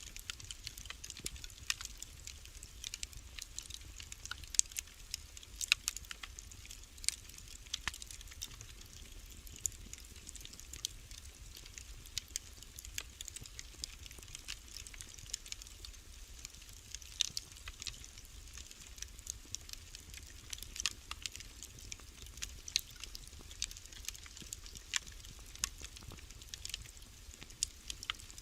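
Wood fire burning in a fireplace, crackling with irregular sharp pops several times a second over a low steady rumble.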